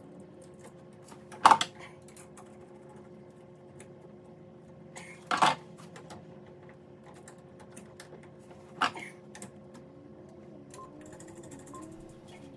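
Handling clicks of a plastic two-pole circuit breaker as wires are worked into its terminals: three sharp clicks about three to four seconds apart, with lighter ticks between them, over a faint steady hum.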